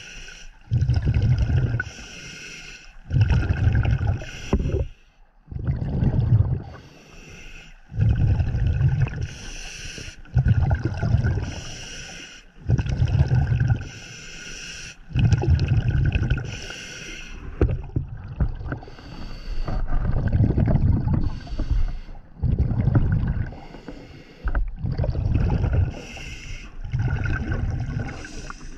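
Scuba diver breathing through a regulator underwater: a string of breaths and exhaled bubble bursts, one every second or two.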